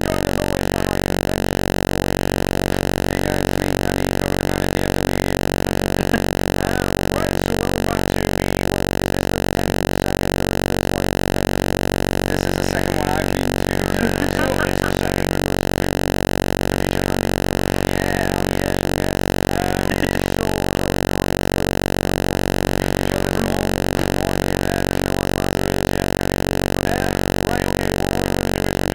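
A loud, steady droning buzz with many even overtones that does not change, with faint indistinct voices underneath here and there.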